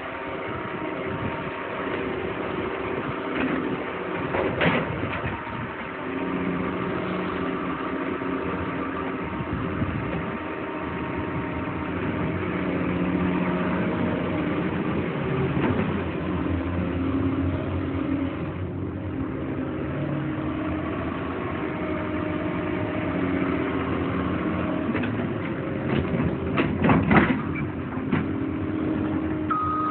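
Cat 320EL hydraulic excavator's diesel engine running, its note stepping between levels several times. A few sharp metal clanks come about four seconds in and again near the end.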